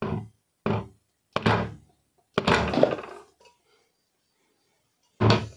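Five dull thunks and knocks, the middle one longer, from a ceiling fan's cast-aluminium BLDC motor housing being handled, turned and pressed while its cover is worked loose.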